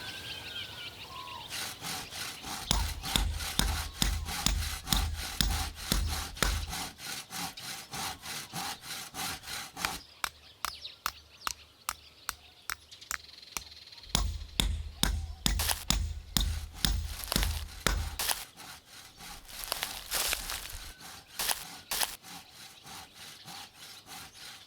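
Timber being worked by hand: rapid sawing and knocking strokes on wood, about five a second. Two separate spells of deep, dull thuds run underneath.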